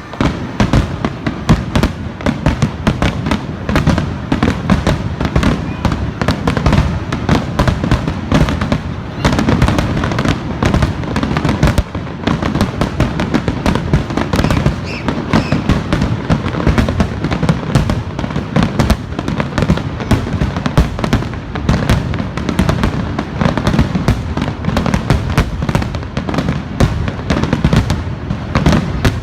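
Fireworks display: a dense, unbroken barrage of loud bursts and crackles, several a second.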